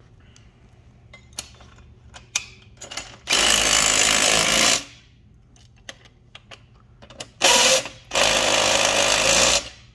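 Cordless impact driver hammering a bolt tight while a wrench holds the nut, in three runs: a long one of about a second and a half a third of the way in, then a short burst and another long run near the end. A few light metal clicks from the wrench and bolt come before the first run.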